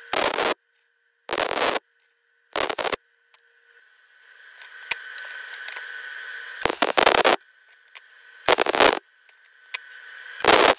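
MIG welder tack-welding a steel flange to a shaft: six short bursts of crackling arc, each half a second or less, with a steady high hum between them.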